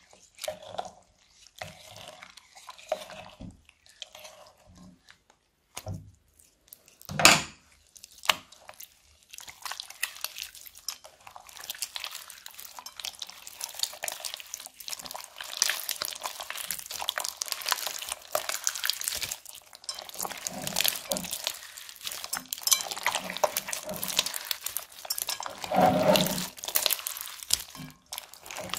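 Crunchy clear slime full of beads being squeezed and kneaded by hand: scattered wet squelches and sticky clicks, one loud sharp click about seven seconds in, then a dense run of fine crackling from about nine seconds on.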